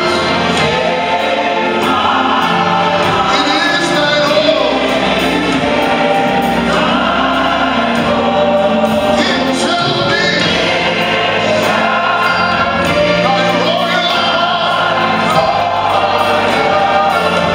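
Church choir and congregation singing a gospel hymn together, many voices holding long notes.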